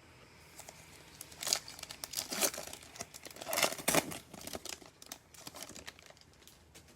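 A plastic-foil wrapper of a Prizm basketball card pack crinkling as it is torn open, in a cluster of sharp crackles between about one and four seconds in.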